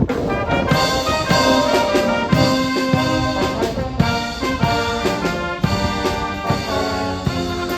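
Brass music: trumpets and trombones playing a tune together, with drums underneath.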